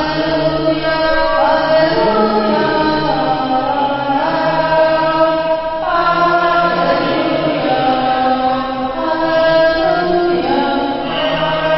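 A woman singing a slow song through a handheld microphone, holding long notes that step up and down in pitch, with a steady lower note sounding beneath.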